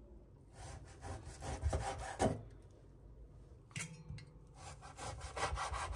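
Knife slicing through half-thawed pork belly: a run of short sawing strokes, a quieter pause about halfway, then more strokes.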